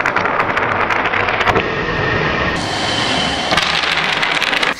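A sustained hard blow of breath buffeting the microphone, a loud rushing, crackling noise, as pink jelly candy sticks are blown across a tabletop.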